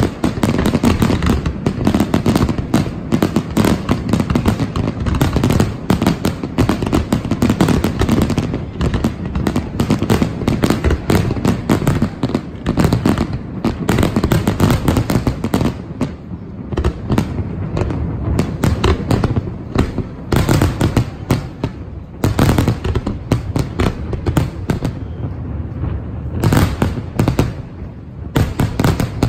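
Aerial fireworks display going off in a rapid, continuous barrage of bangs and crackling. It eases off a little about halfway through, then comes back in a few denser volleys of bursts near the end.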